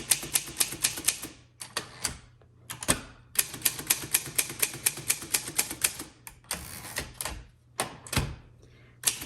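Keys of a 1954 Voss ST24 manual typewriter being struck in quick runs of about five strokes a second, with short pauses between runs. Two heavier thumps come about three seconds in and near the end.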